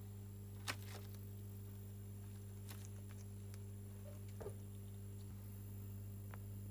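Steady low electrical hum with a few faint clicks and taps, the sharpest less than a second in.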